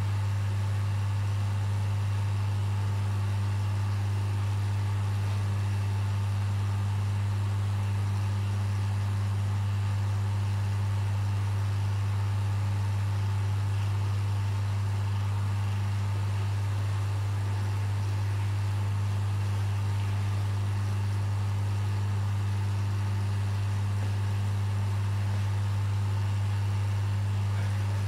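Steady low mechanical hum of aquarium pumps running, unchanging in pitch and level, over a light hiss of circulating water.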